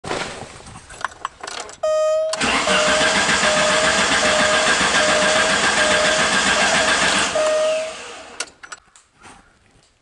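Alfa Romeo Spider's four-cylinder engine cranked on the starter motor for about five seconds, from about two seconds in, without catching, then the starter stops. The car cranks but won't start; the owner says it acts like it's getting no fuel.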